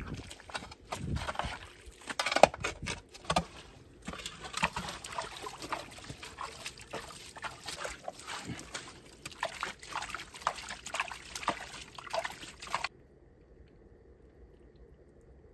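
Wet mud and water sloshing and splashing as a spring hole is dug and cleared out, with many irregular clicks and scrapes. The sound cuts off suddenly about thirteen seconds in, leaving only a faint hiss.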